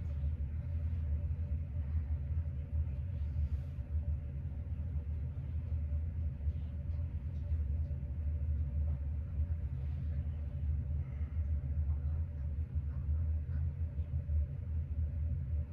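Steady low rumble with a faint steady hum over it, unbroken throughout, with a few faint soft ticks.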